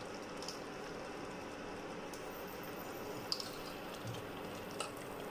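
Biryani rice and water simmering in a pressure-cooker pot: a steady, even bubbling hiss with a few faint ticks.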